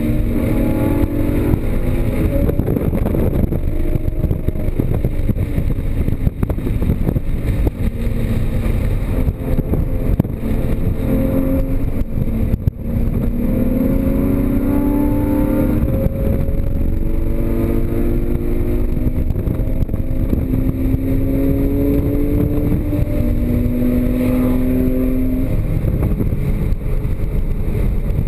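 Porsche Cayman GTS's flat-six engine driven hard on track, its pitch climbing repeatedly through the revs and falling back between pulls, over steady road and wind noise. About halfway through, the sound briefly drops out sharply.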